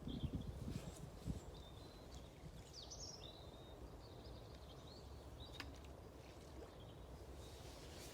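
Wind buffeting the microphone as a low rumble, gustier in the first second, with small birds chirping briefly now and then.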